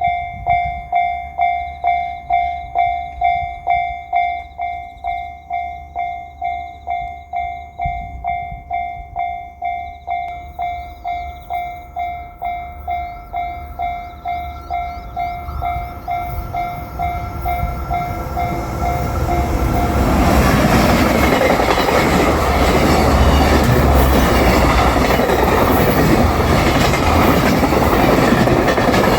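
Japanese level-crossing warning bell ringing in a steady 'kan-kan' about twice a second. About twenty seconds in, the rumble and wheel clatter of a JR Freight train hauled by an EF210 DC electric locomotive takes over and drowns the bell as the train passes.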